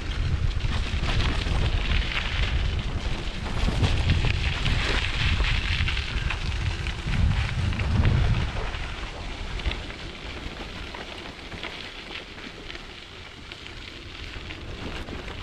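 Wind buffeting the microphone with rushing road noise while riding on a dirt road, heavy for the first half and easing off after about eight seconds.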